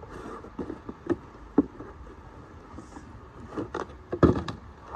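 Cardboard box being cut and torn open and a bubble-wrapped brake caliper pulled out, with a string of sharp rips, crinkles and knocks. The loudest is a short cluster about four seconds in.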